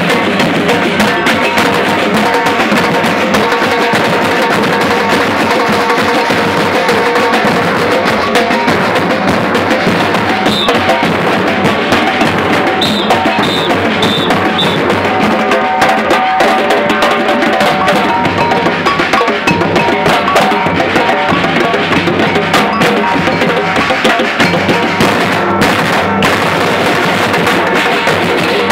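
Batucada drum ensemble playing a steady, continuous Brazilian samba rhythm, with bass drums under snare drums.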